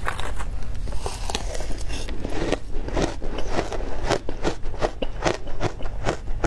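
Frozen matcha ice topped with passion fruit being crunched close to the mic. A spoon digs into the ice, then she bites and chews it in a quick run of crisp crunches, about three a second.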